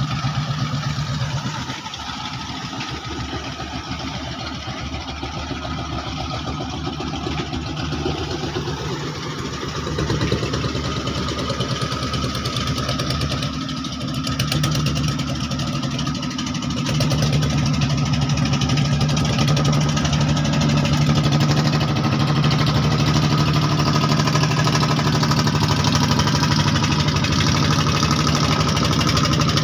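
Klotok river boat's engine running steadily with a rapid chugging beat, growing louder about 17 seconds in.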